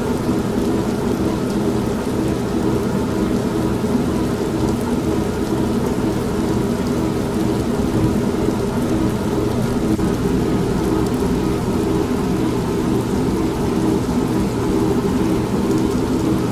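Steady rain with low rumbling thunder, mixed with an old washing machine running, its motor a steady hum beneath the rain.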